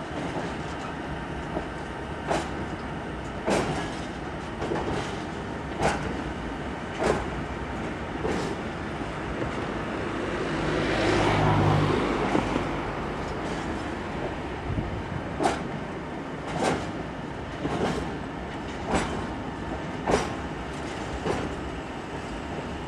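Empty flat wagons of a track-laying train rolling slowly over temporary track, wheels clacking over the rail joints about once a second above a steady rumble. The rumble swells for a second or two about halfway.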